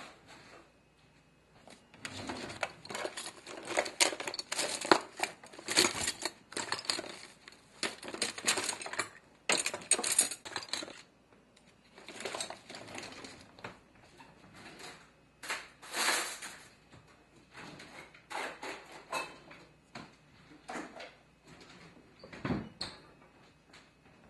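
A hand rummaging through a cluttered kitchen drawer, its contents rattling, clinking and rustling in irregular bursts with short pauses. There is a single low thump near the end.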